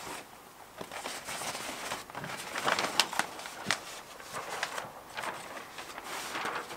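Large sheet of handmade Japanese paper (washi) rustling and crackling as it is unrolled and lifted through the air, with a cluster of sharper crackles about three seconds in.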